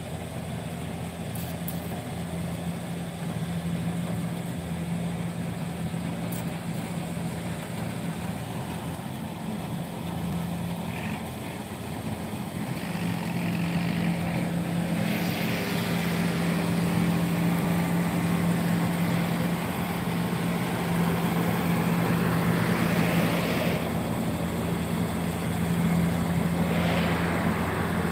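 Combine harvester engine running steadily as it cuts ripe rice, a continuous low hum that grows louder in the second half, with a few brief swells.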